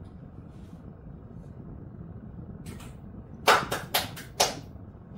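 Four short, sharp handling noises in quick succession about three and a half seconds in, the first the loudest, over a steady low background hum.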